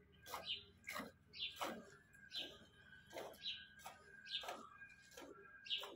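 Hand-milking of a desi cow: short hissing squirts of milk striking the milk in a plastic bucket, about one and a half a second in a steady rhythm.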